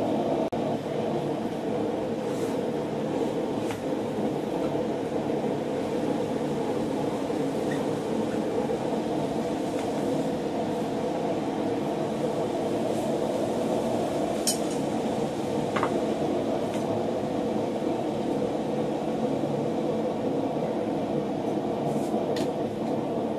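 A forge running steadily while the iron heats, with a few faint metal clinks in the second half.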